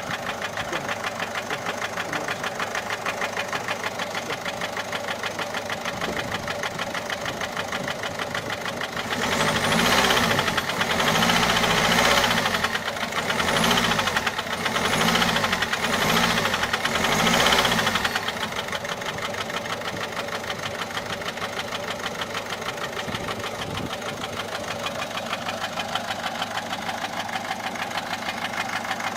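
Peugeot 407 1.6 HDi four-cylinder turbodiesel idling with a fast, regular ticking knock, revved five times in quick succession from about a third of the way in, then settling back to idle. The noise is one the mechanic thinks could be a broken cam follower (tappet) or camshaft.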